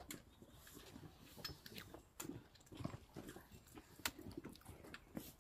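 Giant panda biting and chewing a bamboo stalk: faint crunching with irregular sharp cracks, the loudest about four seconds in.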